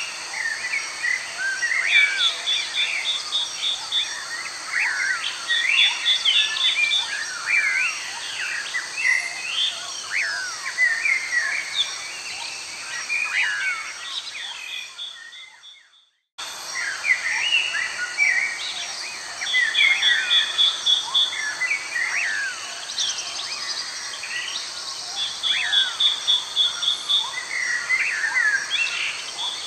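Many birds chirping and calling over a steady high insect hum, with a short buzzy trill recurring every few seconds. About fourteen seconds in the sound fades away, drops out for a moment, then starts again.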